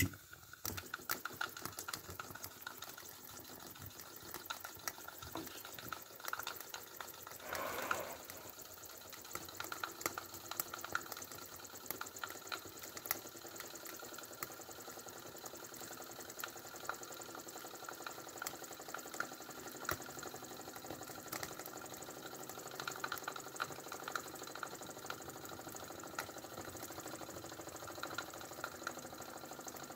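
Small model steam engine under steam: a faint steady sizzling hiss with a dense run of small clicks, from steam escaping at leaks. There is a brief louder rush about eight seconds in.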